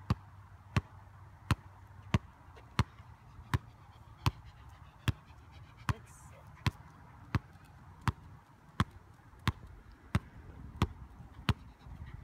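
A large ball bounced repeatedly on asphalt: about sixteen sharp smacks at an even pace of roughly three every two seconds, stopping near the end.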